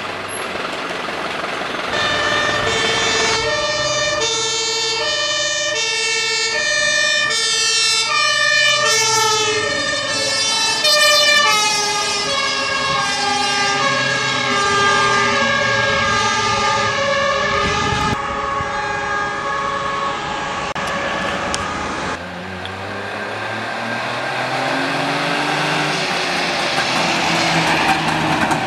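Two-tone sirens (Martinhorn) of German fire engines on emergency runs, heard in several clips in a row with the trucks' engines under them. The high and low notes alternate about once a second, and the pattern changes to a different rising sound after a cut near the end.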